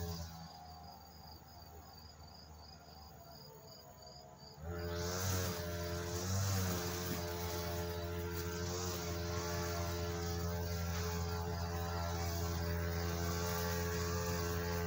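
A few seconds of quiet with a faint cricket-like chirp repeating three or four times a second. Then, about five seconds in, a steady low droning hum with several held pitches starts and runs on.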